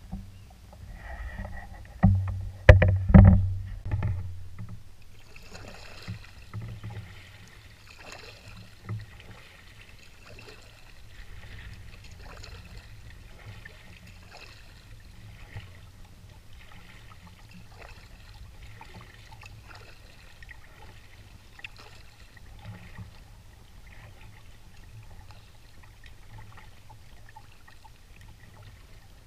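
Canoe on the water: a few loud knocks on the hull about two to four seconds in, then water lapping and trickling around the canoe with small scattered knocks as it moves along.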